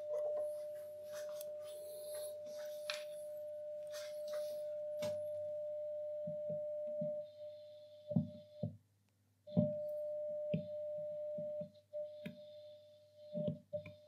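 Grundig 2147 valve radio's loudspeaker playing a steady test tone: the signal generator's modulation tone received during AM RF alignment. The tone drops out twice in the second half, amid clicks and knocks of metal pliers on the chassis; the tone stops when the tool touches the trimmer.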